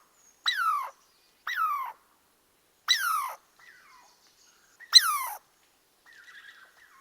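An animal's short, high-pitched cries, each sliding down in pitch, repeated about five times with silent gaps between them.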